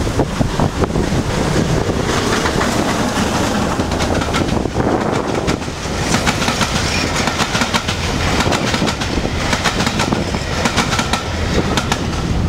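Carriage wheels of a steam-hauled passenger train clattering over the rails, with many sharp clicks over a steady rush of running and wind noise, heard from the carriage window.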